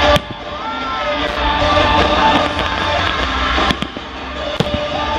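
Music playing while fireworks go off: a sharp bang just after the start and two more bangs near the end.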